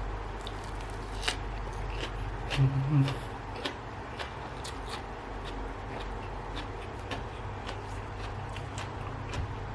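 A person eating close to the microphone: scattered small clicks and crunches of chewing, with a brief low hum of voice about two and a half seconds in.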